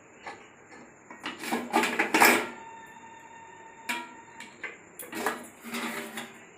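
Aluminium cookware clinking and knocking as the pot holding the baked pizza is handled: a few separate metallic knocks, the loudest about two seconds in, leaving a brief ringing tone.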